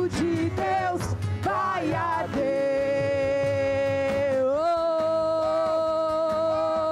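Worship band music with a lead singer: a short sung phrase, then a long held note that steps up in pitch about halfway through.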